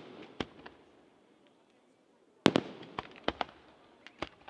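Aerial fireworks shells bursting with sharp bangs: two in the first second, a short lull, then a loud bang about two and a half seconds in followed by a quick run of smaller bangs.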